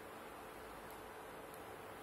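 Faint steady hiss with a low hum, and two very faint ticks about a second in and again half a second later.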